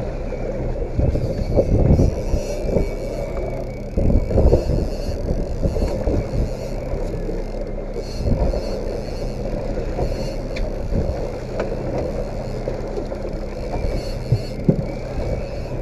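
Boat's outboard motor running with a steady low hum, with wind buffeting the microphone in gusts about two and four seconds in, over the wash of the sea.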